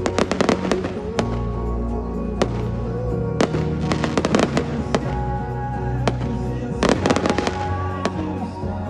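Fireworks going off in three rapid crackling clusters, about a second apart in each, over music with sustained notes.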